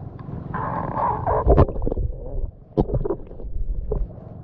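Muffled sloshing and gurgling of shallow sea water, with three sharp knocks about a second apart.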